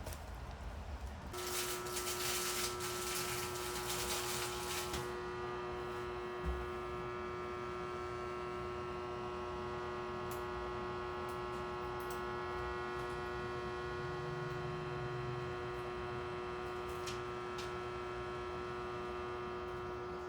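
A steady electric hum switches on about a second in and holds an even pitch, with a hiss over it for the first few seconds.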